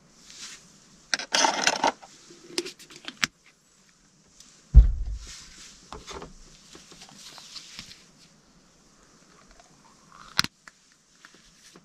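Handling sounds while cooking: a spoon clinking and scraping in a bowl, a dull thump about five seconds in, then a small plastic container's lid snapping open near the end.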